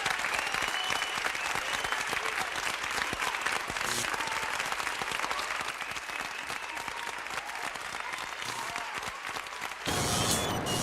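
Crowd applauding: dense clapping throughout. Near the end it cuts off abruptly into a different, louder, lower sound.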